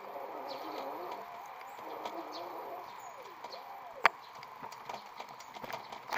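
Ride noise from a rented 250 W hub-motor electric bicycle: a wavering whine that bends up and down in pitch, with scattered rattling clicks and one sharp knock about four seconds in.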